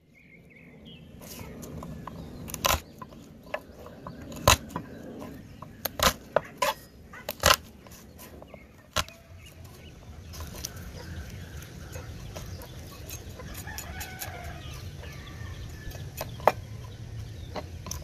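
A kitchen knife knocking on a wooden cutting board as garlic cloves are crushed and cut: a series of sharp knocks, most of them in the first half and one more near the end. Chickens cluck in the background.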